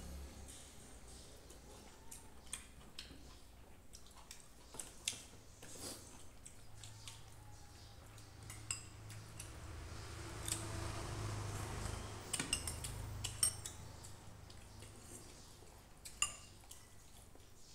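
Spoons and forks clinking and tapping against ceramic plates and small bowls during a meal: scattered light clicks, a few of them ringing briefly.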